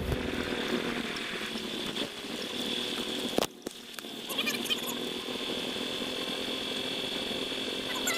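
Steady machinery hum with a high whine at a grain dump pit while a hopper trailer unloads corn. A sharp click and brief drop come about three and a half seconds in, followed by a few short squeaky chirps.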